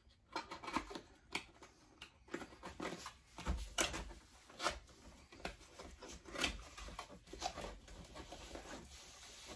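Small cardboard box being handled and opened: irregular rustles, scrapes and light taps of the cardboard flaps and the packaging inside.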